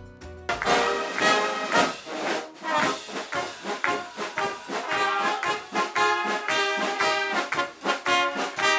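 Massed Bavarian brass band of nearly a thousand players, trumpets and trombones among them, playing together in loud, rhythmic notes. It cuts in about half a second in over quieter, bass-heavy music.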